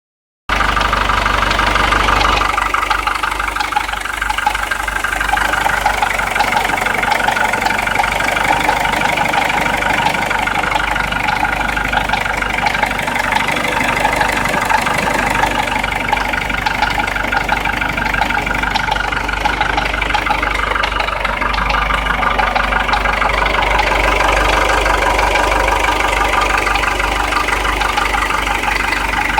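Nissan Primera P12 2.2 dCi four-cylinder diesel engine idling steadily, with a fast knocking from under the timing cover.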